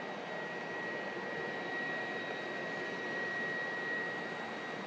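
BioLite wood-burning camp stove's built-in fan running steadily, forcing air into the wood fire under the pot: an even whir with a steady high whine over it.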